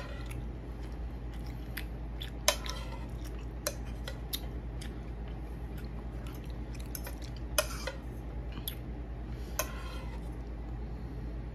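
Fork or knife clinking against a plate while eating: scattered sharp clinks, the loudest about two and a half, seven and a half and nine and a half seconds in, over a steady low hum.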